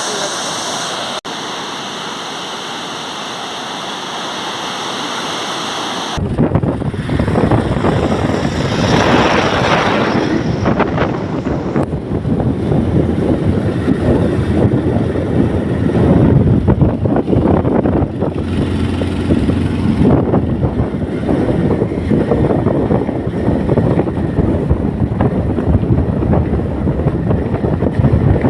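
Steady rush of a waterfall. About six seconds in it cuts abruptly to loud, gusting wind buffeting on the microphone, a low uneven rumble that runs on to the end.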